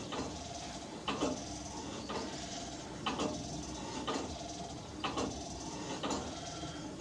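Church bell pealing, the clapper striking about once a second, with the bell's tones ringing on between strikes.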